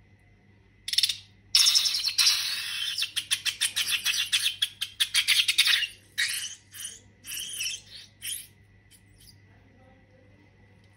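Slime squelching and crackling in a dense run of small pops, starting about a second in. After about six seconds it breaks into separate squishes, and it dies away at about nine seconds.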